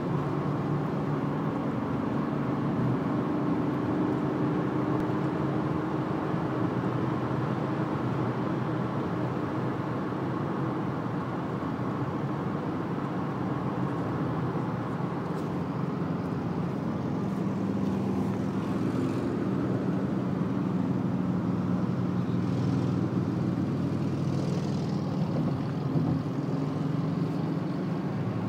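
Steady road and engine noise inside a moving car's cabin at highway speed, with a low engine hum that shifts in pitch now and then.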